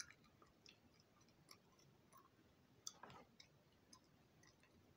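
Near silence with faint, irregular wet clicks of chewing gum being chewed with the mouth, and a slightly louder soft smack about three seconds in.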